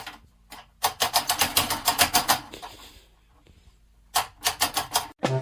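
Rapid sharp clicking, like tapping or typing, in two quick runs of about eight to ten clicks a second with a short pause between them.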